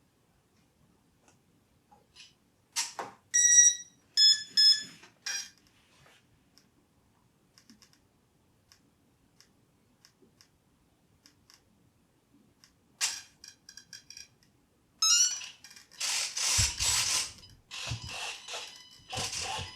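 The E-flite UMX Timber's electronics powering up after its flight battery is plugged in: a click and a few short electronic beeps. Later come several seconds of quick buzzing bursts from the plane's small servos driving the control surfaces.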